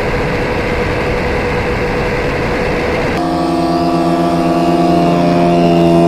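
Electric motors of radio-controlled aircraft whining steadily, a single high tone at first. About three seconds in, a louder whine made of several tones cuts in and holds steady, growing slightly louder toward the end.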